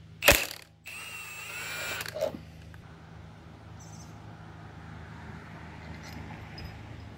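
A sharp bang just after the start. Then a wavering metallic creak for about a second and a half as the crankshaft balancer pulley of a 1.6 L EcoBoost four-cylinder is worked off the crank nose by hand, ending in a light knock. A low steady hum runs underneath.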